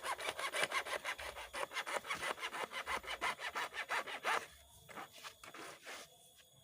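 Hand saw cutting through a length of well pipe in quick back-and-forth strokes, about four or five a second. The strokes die down after about four and a half seconds. The pipe is being cut to length because the bore has reached the bottom.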